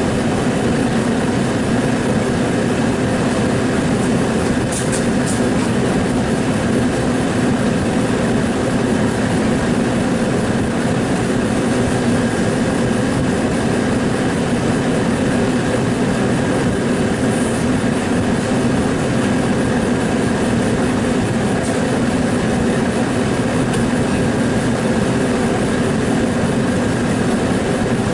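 A motor-driven machine running steadily and loudly with a constant hum, unchanging throughout.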